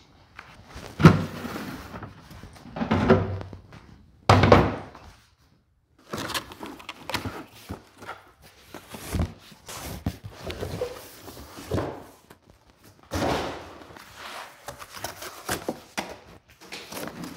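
Cardboard packaging being opened and handled by hand: rustling and flaps folding, with dull knocks and sharp clicks as the boxes and the aluminium guide rail inside are moved. The three loudest bursts come in the first few seconds.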